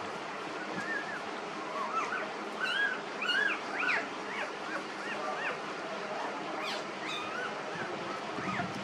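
Newborn puppies squeaking and whimpering: many short, high squeals that rise and fall, over a steady background hiss.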